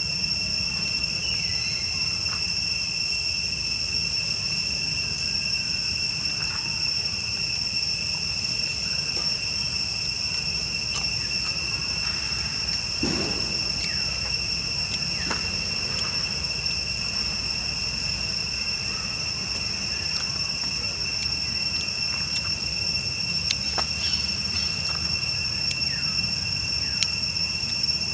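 Insects droning steadily in a continuous high-pitched whine, with a few faint clicks and short chirps scattered over it.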